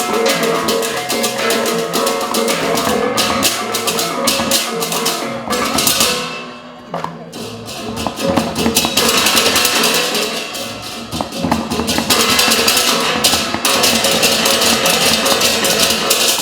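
Live ensemble music driven by fast, dense percussion over sustained pitched instruments, easing off briefly about halfway through before picking up again.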